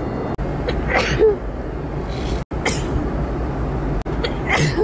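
A person sneezing: three short, sharp sneezes about a second and a half apart, each breaking off abruptly, over a steady low background rumble.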